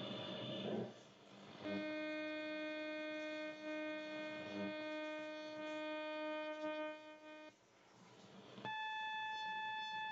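Kenwood TS-850S HF receiver's speaker in AM mode, tuned across the 11-metre band, giving steady buzzing tones: a low buzz that holds for several seconds, a brief stretch of hiss, then a higher buzz near the end. These are interfering signals that the operator takes for military radar.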